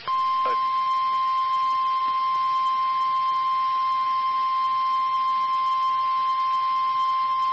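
NOAA Weather Radio warning alarm tone: a single steady 1050 Hz beep held at constant pitch and level, starting right at the beginning, over faint radio hiss. It is the signal that a warning is about to be broadcast, here a severe thunderstorm warning.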